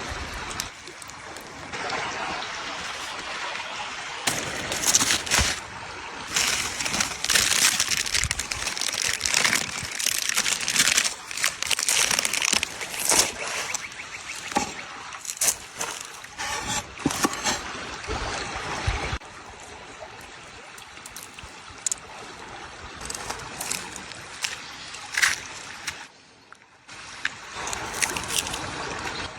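Sucuk frying and sizzling in butter over embers, a dense spitting hiss with many sharp pops. The sizzle is loud for about the first two-thirds, then settles lower and drops away briefly near the end.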